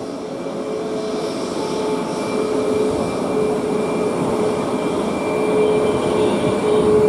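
Boeing 737-8 MAX's CFM LEAP-1B turbofan engines running at taxi power, a steady whine over a broad jet noise. It grows steadily louder as the jet rolls closer.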